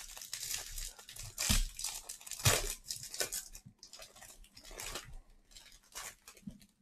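A hanger box of trading cards being torn open by hand: cardboard and wrapping tearing and crinkling in a string of short, irregular rips.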